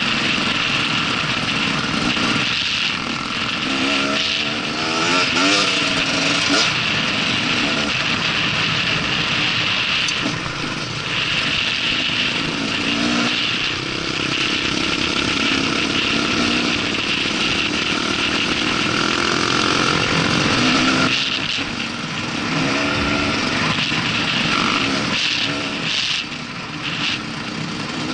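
Dirt bike engines running while riding over rough ground, the revs rising and falling a few times; other trail bikes ride close by.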